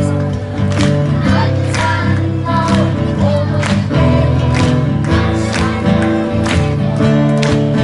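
Song music with a steady beat, one strong hit about every second, over sustained chords.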